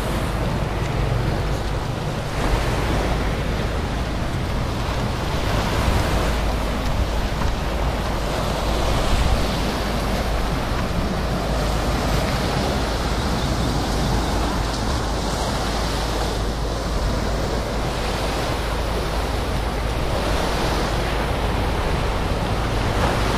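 Small sea waves washing against a seawall and rocky shore, mixed with steady wind rumbling on the microphone.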